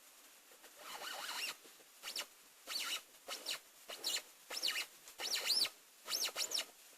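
Strange noise from a Gilera Runner 50SP scooter: a series of high-pitched squeaks, each rising and then falling in pitch, about one or two a second and coming closer together toward the end.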